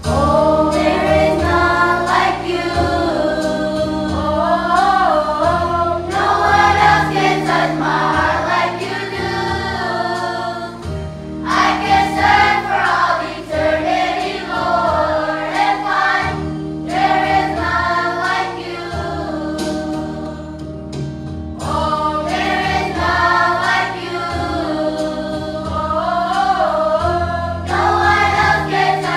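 Children's Sunday School choir singing a hymn together.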